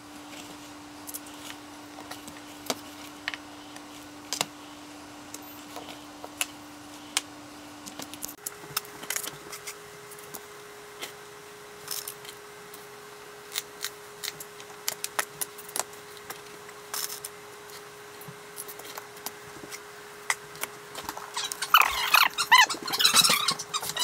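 Light clicks and taps of tile work by hand, scattered irregularly over a steady hum that jumps higher in pitch about a third of the way in. Near the end a louder, busier stretch of sound begins.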